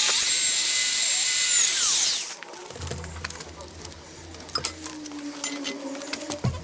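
A high-speed handheld power tool runs with a high whine for about two seconds, then is switched off and spins down, its pitch falling. Afterwards, a few faint clicks and knocks over a low hum.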